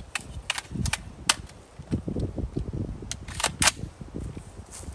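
Gunshots: a string of sharp cracks of varying loudness, the loudest about a second in and about three and a half seconds in.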